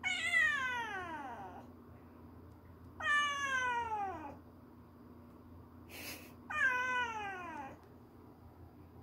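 A kitten meowing three long calls, each sliding down in pitch, calling for its mother. There is a brief sharp noise just before the third call.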